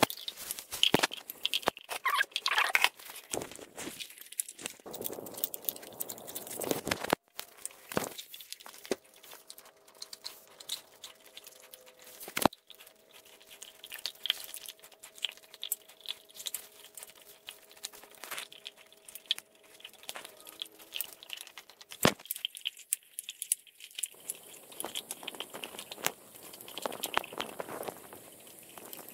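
Alaskan Malamute chewing raw beef ribs: irregular crunching on bone and wet tearing at the meat, with two loud single cracks partway through.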